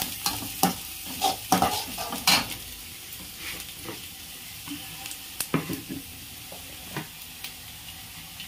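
Chopped onions and green chillies sizzling in hot oil in a steel kadhai as they fry toward golden. A slotted steel spoon scrapes and clinks against the pan while stirring: the strokes come often for the first two seconds or so, then only now and then.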